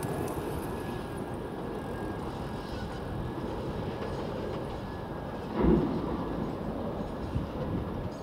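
Auckland Transport AM class electric multiple unit running along the line at a distance: a steady low rumble of the train, with one brief louder rumble a little over halfway through.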